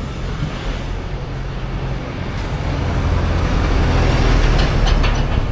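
Street traffic: a motor vehicle's engine running close by, its low rumble growing louder about four seconds in, with a few short clicks near the end.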